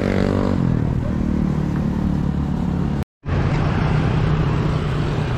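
Street traffic rumble with a motor vehicle's engine, its pitch falling in the first half-second as it passes. The sound cuts out briefly about three seconds in, then steady traffic rumble returns.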